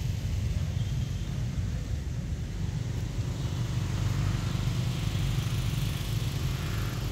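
Steady low rumble of background noise, even throughout with no distinct calls or knocks standing out.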